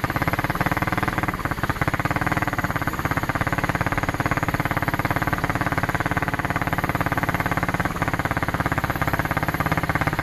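ATV engine running steadily and close, a rapid, even firing chug.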